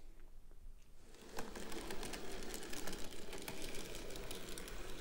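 N gauge model J39 steam locomotive hauling goods wagons along the track, a steady fine rattling of many small clicks from the running train that starts about a second in.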